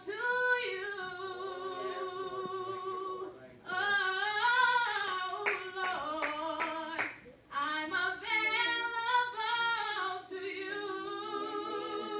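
A woman singing a praise song solo into a microphone, holding long, sliding notes. A few sharp claps come about halfway through.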